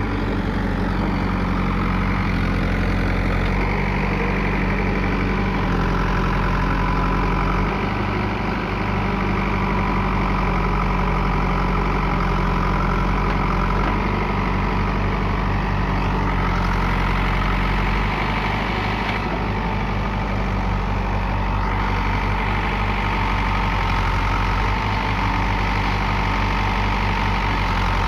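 Diesel engine of a working construction machine running steadily, its tone shifting slightly a few times.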